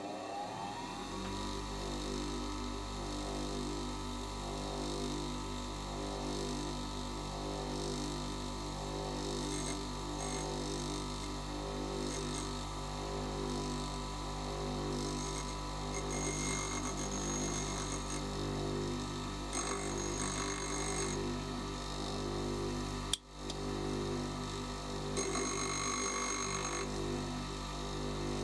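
Bench grinder motor spinning up to speed in the first second, then running with a steady hum. Several times in the second half, for a second or two each, an endmill's cutting edge is ground against the grinder's white wheel, adding a high grinding hiss.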